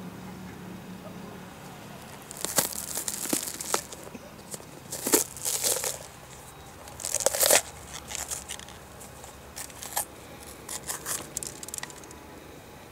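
A fresh yellow bell pepper being broken apart by hand: the crisp flesh cracks and tears in three loud crackling bursts, then smaller snaps as the pieces are pulled further apart. The crunch is the sign of firm, crisp fruit, not soft.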